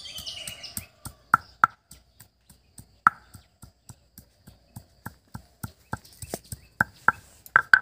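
Peeled ginger being crushed with a hand-held stone pounder on a wooden chopping board: a run of sharp knocks, about three or four a second, some much louder than others.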